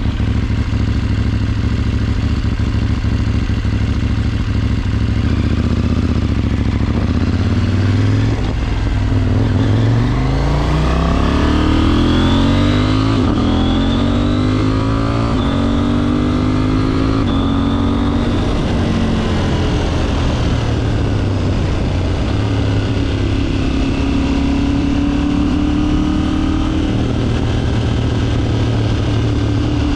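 KTM 790's parallel-twin engine running under a rider on the move. Its pitch climbs steadily as it accelerates about a third of the way in, holds for a few seconds, then drops back as the throttle closes, with smaller rises near the end.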